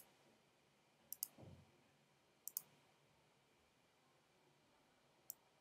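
Computer mouse clicking three times in near silence: short, sharp clicks about a second in, about two and a half seconds in, and near the end.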